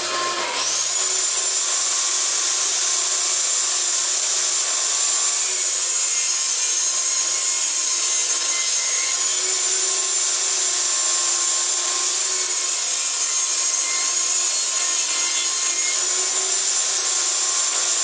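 Benchtop table saw running with a steady high whine after coming up to speed at the start, ripping pallet-wood boards to width along the fence.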